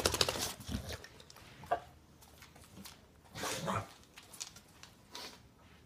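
English bulldog making sounds close up: a rapid rattling sound at the start, then a few short breathy sounds about two, three and a half and five seconds in.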